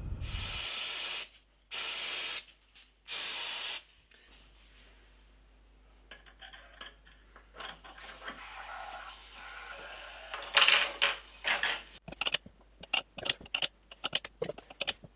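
Cold spray hissing onto the steel cutterhead shaft in three short bursts, freezing it to shrink it for a press fit. Then comes metal scraping as the oven-heated aluminium pulley is worked onto the knurled shaft, with one sharp loud knock about two-thirds of the way in. Near the end there is a run of quick metallic clicks as the pressing tool is turned to force the pulley on.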